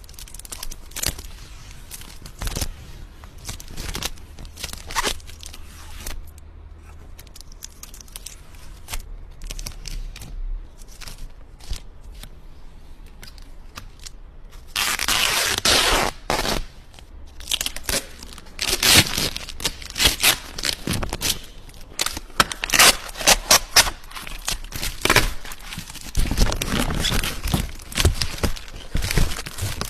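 Packaging being torn open and handled by hand: scattered light clicks and rustles at first, then from about halfway a busy run of tearing and crinkling with sharp snaps.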